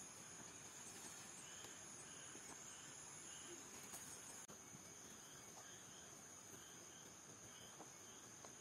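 Faint, steady, high-pitched drone of insects, with soft short chirps repeating throughout. The drone drops out briefly about four and a half seconds in, then carries on.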